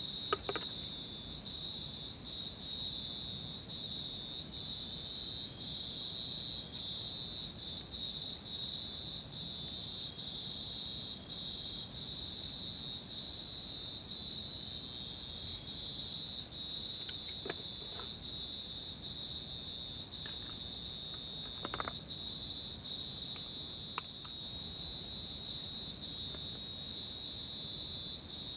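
A steady, high-pitched chorus of night insects trilling without a break, with faster pulsing chirps above it. A few faint short clicks sound here and there.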